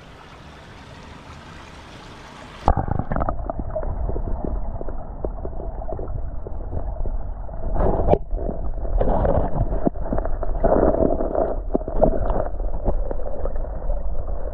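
Stream water running, then from about three seconds in a louder, muffled gurgling and sloshing of water with scattered clicks, heard through an underwater camera housing.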